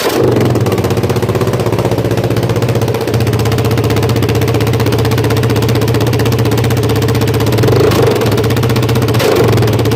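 Yamaha Raptor 700R's single-cylinder four-stroke engine running through an open header pipe with the muffler removed, very loud ("stupid loud"). It idles steadily and rises briefly twice near the end.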